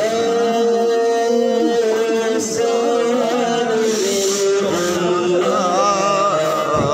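A male voice singing a slow, ornamented chant with long held notes that waver and glide between pitches.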